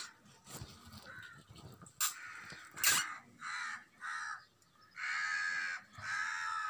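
A crow cawing outside, four harsh caws in the second half, the last two longer. Two sharp knocks, the loudest sounds, come about two and three seconds in.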